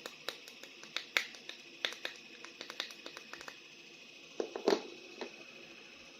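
Plastic toy action figure being handled: irregular small clicks and taps, a few a second, with a louder clatter about four and a half seconds in.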